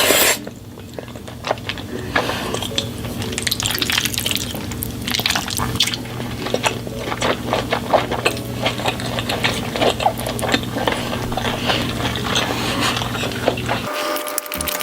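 Close-miked eating: many small wet mouth clicks, smacks and slurps with light clinks of utensils, over a steady low hum that cuts off near the end.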